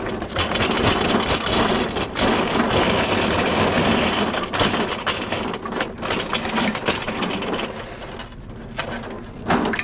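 A discarded dishwasher being dragged and manhandled, its metal body scraping and rattling heavily for several seconds. Lighter shuffling follows, with a few sharp knocks and one loud knock near the end.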